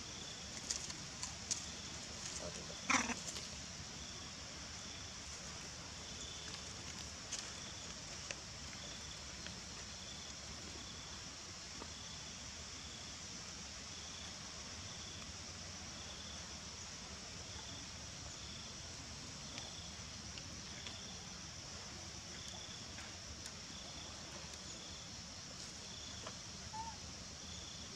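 Quiet outdoor background: a steady high hiss with a faint high tone pulsing about once a second. A few small clicks come in the first seconds, and a short knock about three seconds in.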